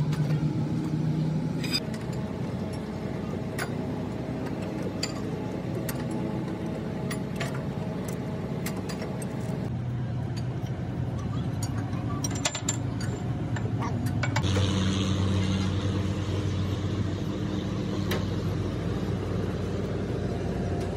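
A heavy engine running steadily, with scattered metallic clinks and taps from hand tools working at the excavator's slewing ring. About 14 s in, the engine note grows louder and fuller.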